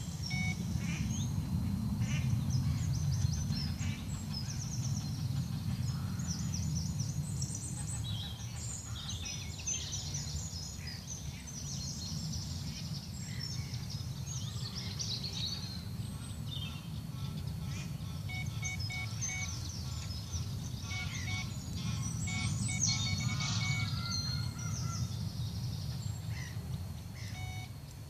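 Many birds chirping and calling over a steady low rumble.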